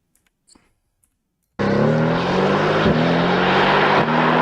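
Mercedes-AMG GT R's twin-turbo V8 accelerating hard, its pitch climbing and dropping twice about a second apart as it snaps through quick upshifts. It cuts in suddenly about one and a half seconds in, heard from a distance with wind noise over it.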